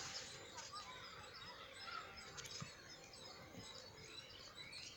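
Faint background birds chirping: many short, scattered high chirps over a low hiss.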